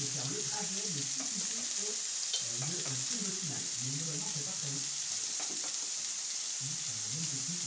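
Tomato and pepper slices sizzling on an electric plancha griddle, a steady frying hiss, while metal tongs turn them with a few light clicks on the plate. Low voices murmur underneath.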